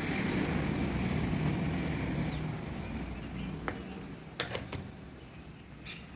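A low engine rumble that fades over the first few seconds, with several sharp clicks, like tools on metal, later on.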